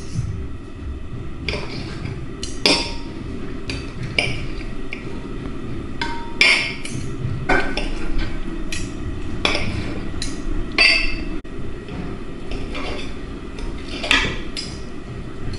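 Metal fork and knife clinking and scraping against a glass baking dish while shredding boiled chicken thighs: irregular sharp taps, a couple of them ringing briefly. A steady low rumble runs underneath.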